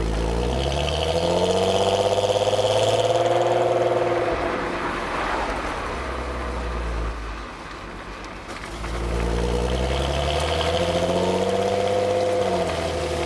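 Stock exhaust of a Volkswagen Golf R32 (Mk5) with its 3.2-litre VR6, heard close at the tailpipes. The engine note rises in pitch and level for a few seconds, falls back to a lower, quieter note, then rises again and drops back near the end.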